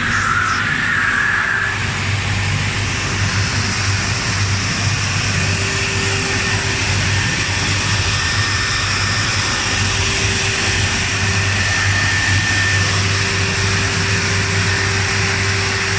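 Industrial flat-glass washing machine running: a steady electric motor hum under a constant even hiss, with no change in its sound.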